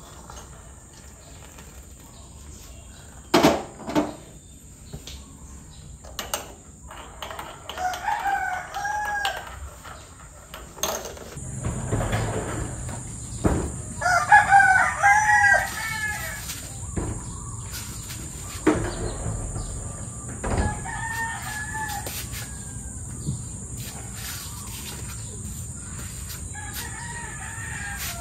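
Rooster crowing about five times, the loudest crow about halfway through, with a few sharp knocks in between, the first about three seconds in.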